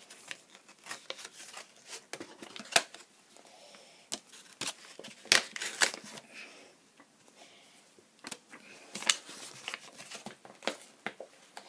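Pokémon card pack packaging being worked open by hand: irregular crinkling of plastic and card, with many sharp clicks and snaps as it is torn and pried.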